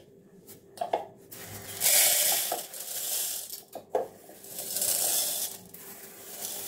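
Dry split lentils poured from a steel plate into a plastic bowl: the grains rush and rattle down in two main pours, about a second and a half in and again around four and a half seconds, with a few sharp clicks in between.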